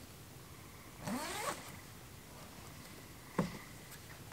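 Zipper on a canvas bell tent's door pulled in one quick stroke about a second in, followed by a single sharp knock a little past three seconds in.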